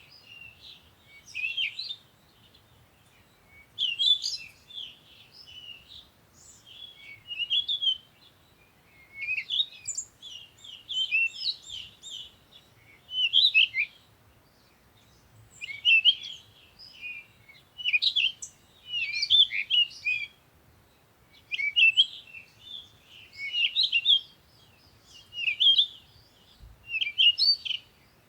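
Songbird singing: short, rapid, warbling phrases of high notes, repeated about every two seconds with brief pauses between.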